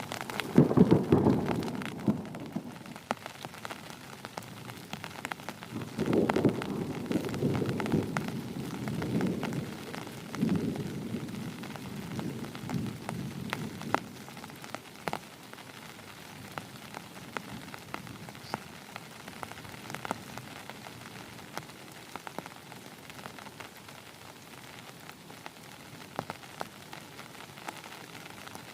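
Heavy rain falling steadily, with many sharp drop taps on a surface. Thunder rolls twice: once in the first couple of seconds, the loudest part, and again from about six to eleven seconds in, then fades.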